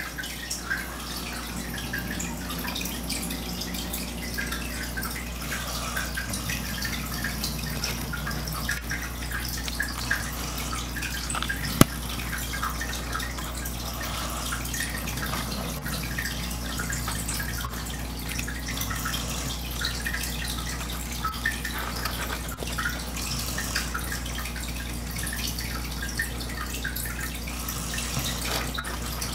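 Sleeper snoring, breath after breath, with the snores swelling every few seconds over a steady low hum.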